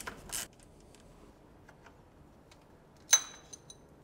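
A few short ratchet clicks and scrapes at the start, then quiet. About three seconds in comes a sharp metal clink that rings briefly, followed by a couple of light ticks: socket tools on the oil pump sprocket nut of a BMW M54 engine.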